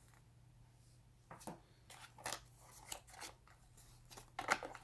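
Charger box packaging being handled as its contents are taken out: a string of short rustling and crinkling sounds starting about a second in, loudest near the end, over a faint steady hum.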